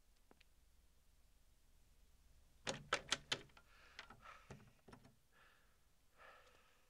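Glazed wooden door being unlatched and opened: a quick run of four or five sharp clicks and knocks about three seconds in, then faint rustling.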